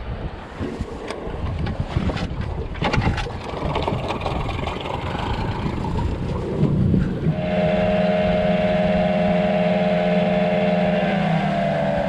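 Knocks and clatter of rods and gear being handled on an aluminium boat, then from about seven seconds in an outboard motor running the boat at speed, a loud steady drone that rises slightly in pitch near the end.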